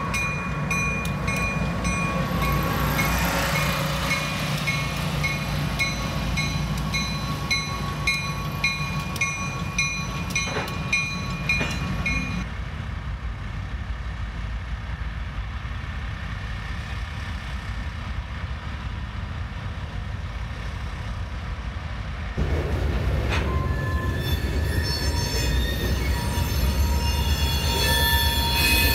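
Diesel switcher locomotives running past with a low engine drone and a bell ringing steadily. About 12 s in the sound turns quieter and more distant. About 22 s in, Norfolk Southern diesel locomotives pass close by with a loud low rumble, and their wheels squeal against the rails toward the end.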